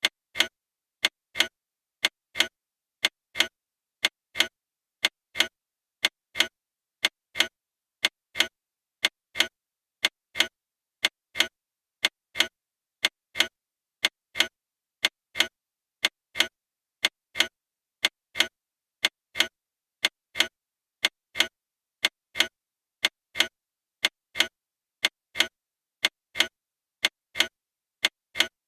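Clock second hand ticking: a steady, evenly spaced run of sharp clicks counting down the seconds.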